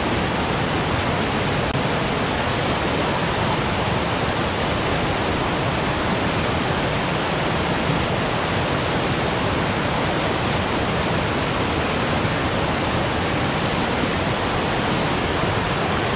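Fast mountain creek rushing: a loud, steady roar of water.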